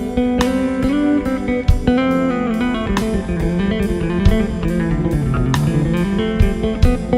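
Background music: electric guitar over drums with a steady beat.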